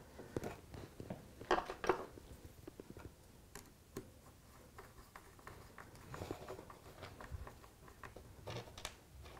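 Faint clicks and light taps of hands handling a plastic Tortoise point motor and small screws on a wooden baseboard, with two sharper clicks about a second and a half in.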